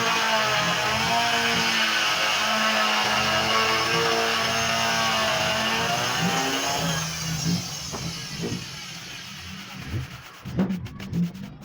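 Handheld electric power tool motor running at speed, its pitch sagging and recovering as it is loaded against wood. It winds down about seven seconds in, then a few short rubbing strokes follow near the end.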